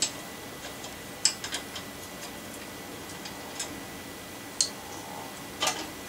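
A handful of light, irregularly spaced metallic clicks and taps from tools and parts being handled while a mountain bike's bottom bracket is fitted.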